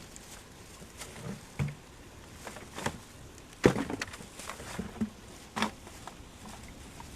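Irregular knocks and clunks of hard objects being handled and set down, about half a dozen, with the loudest sharp clunk about halfway through.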